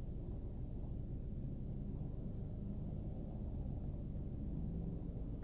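Steady low rumble of tyre and engine noise inside the cabin of a 10th-generation Honda Civic while it is driving, with a faint engine hum.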